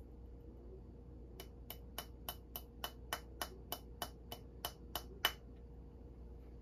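A quick, even series of about fourteen light, ringing taps on a small hard object, three or four a second. They start about a second and a half in and stop after about four seconds, with the last tap the loudest.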